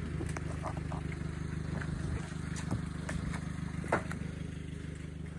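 The 4x4's engine idling steadily, with scattered light clicks and rustles over it.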